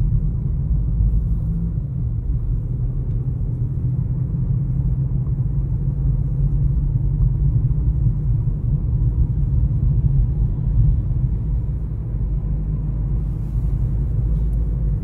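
Steady low rumble of a car heard from inside its cabin: engine and road drone with no sharp events.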